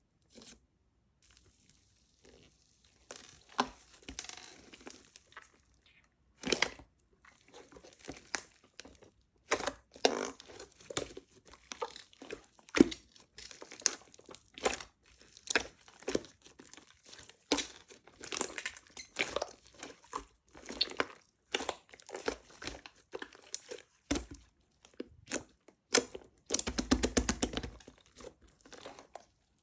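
Slime being squeezed, pressed and stretched by hand, making dense, irregular crackling pops and squishes. The first few seconds are nearly quiet, and the crackling is busiest near the end.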